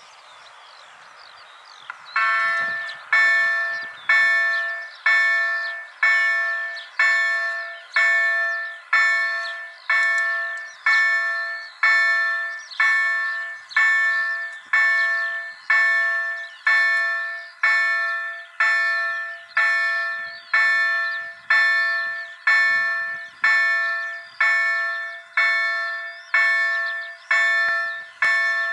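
Level-crossing warning bell on a Bombardier crossing system starts about two seconds in, striking about once a second with each strike ringing and fading. It is the crossing activating ahead of an approaching train, with birds chirping faintly behind.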